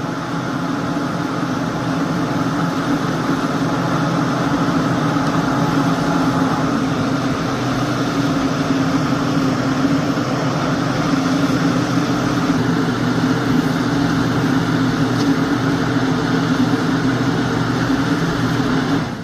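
Electric blower fans of inflatable tube-man air dancers running, a steady low hum under an even rush of air. The sound cuts off suddenly at the very end as the blowers are switched off.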